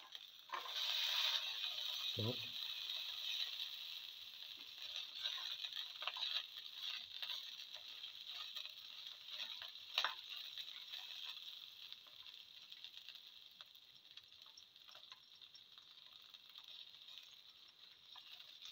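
Oil sizzling in a frying pan as shallots and garlic sauté, loudest in the first few seconds and then slowly dying down. Occasional clicks and scrapes of a plastic spatula against the pan, one sharp click about halfway through.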